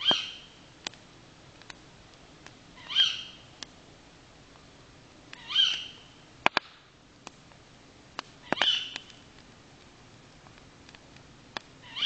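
A night animal's high call, rising quickly and then held briefly, repeated five times about every three seconds. Between the calls come sharp pops and crackles from a campfire.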